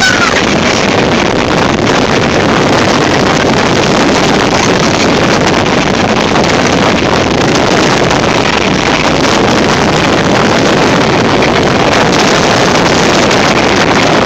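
Loud, steady rush of air from a powerful blower, the blast buffeting the microphone.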